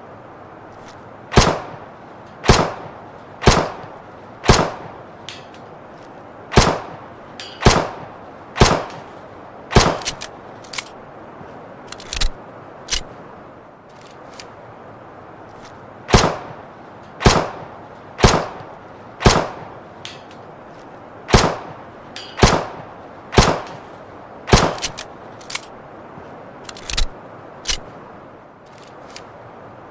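Luger pistol firing single shots about one a second, in two runs of eight with a short pause between them; fainter mechanical clicks fall in the gaps.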